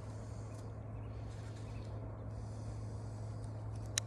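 Knife cutting into a green willow twig, with faint ticks and one sharp click near the end, over a steady low hum.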